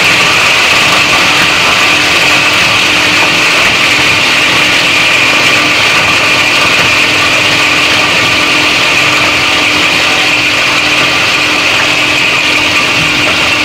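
Heavy-duty plastic scrap grinder running, a loud, steady mechanical noise with a constant hum underneath.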